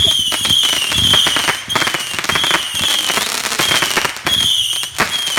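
Consumer fireworks going off: a string of short high whistles, each dropping slightly in pitch and coming about every two-thirds of a second, over dense crackling pops.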